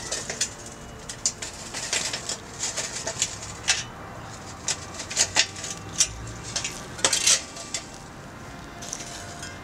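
Lit charcoal briquettes clinking and clattering as they are tipped out of a metal chimney starter onto concrete: a scatter of irregular light clicks that thins out near the end.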